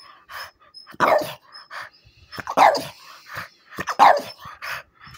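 A dog barking: three loud barks about a second and a half apart, with fainter short sounds between them.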